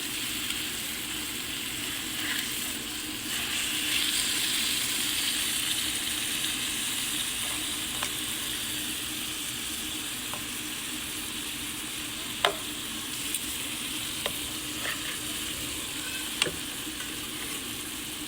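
Chicken pieces sizzling in olive oil in a frying pan, seared on raised heat to brown both sides; a steady hiss, louder about four seconds in. A few sharp clicks in the second half.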